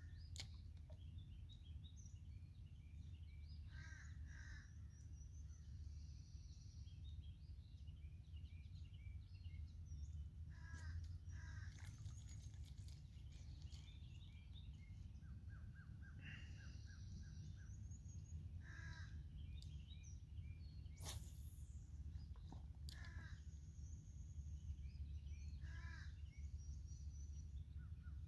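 Birds calling outdoors: short lower calls in small groups every few seconds, with smaller birds chirping higher in between, over a low steady rumble.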